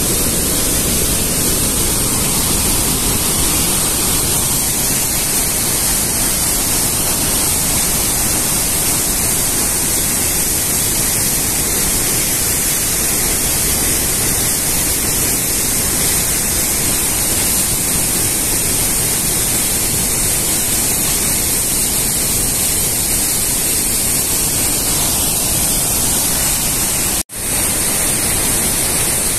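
Davis Falls (Devi's Fall) waterfall: a loud, steady rush of white water pouring into a rock gorge, which cuts out for an instant near the end.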